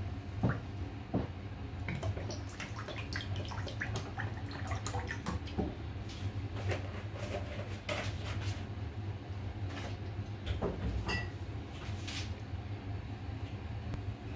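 Cooking oil poured into an empty nonstick wok at the start, then scattered small ticks and crackles as the pan and oil heat over a gas burner, above a steady low hum.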